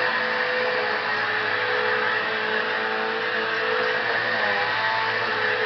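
Vacuum cleaner motor running steadily, a constant whirring drone.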